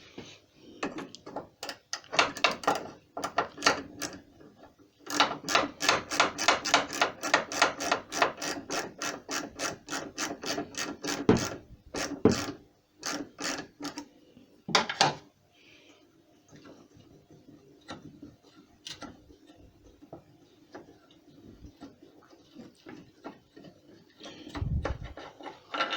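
Hand ratchet clicking in quick, even runs, about four clicks a second, as an 8mm bolt is undone, with a few single metal knocks. The longest run of clicks lasts about six seconds, then it goes mostly quiet, with a low thump near the end.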